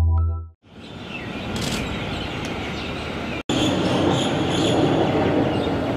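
The last held synth chord of a news-intro jingle, which cuts off about half a second in. Then steady outdoor noise, a hiss with a low rumble, broken once by a brief dropout at a cut near the middle.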